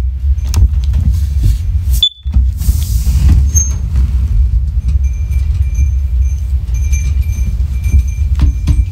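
A loud low rumble with a brief dropout about two seconds in. From about five seconds in, the faint, repeated high beeps of a First Alert OneLink hardwired smoke alarm sounding its test alarm come through under it.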